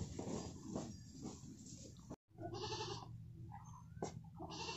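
Goat bleating twice, each call about half a second long.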